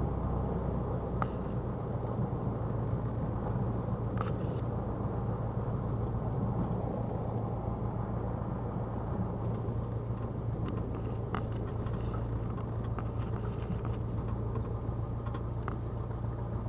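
Cessna 172's piston engine running steadily at low taxi power, a constant drone, with a few faint clicks.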